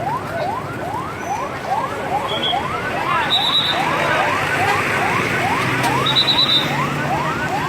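Emergency vehicle siren in a fast yelp: each tone sweeps quickly upward and drops back, about two and a half times a second, over a low steady engine hum.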